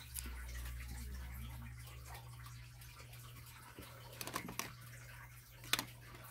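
A low steady hum, with a few faint clicks and taps of handling: one at the start, a couple at about four and a half seconds, and one near the end.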